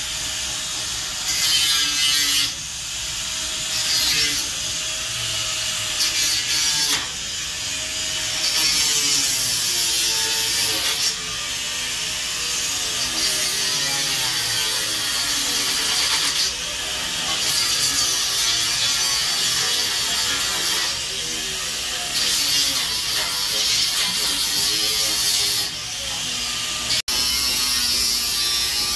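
Angle grinder grinding metal overhead, its motor pitch sagging and recovering as the disc is pressed on and eased off, with loud hissing surges of grinding every few seconds.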